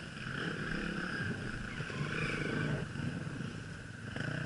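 Off-road motorcycle engines running at low revs, the note dipping a little a few seconds in and picking up again near the end.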